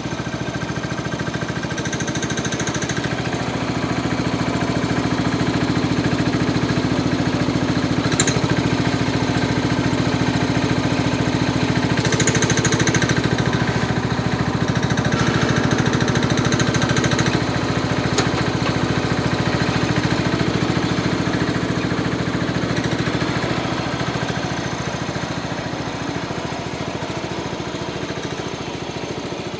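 Craftsman garden tractor engine running steadily as the tractor works its front-end loader, growing louder as it comes up to the dirt pile and dumps the bucket, then fading as it backs away near the end.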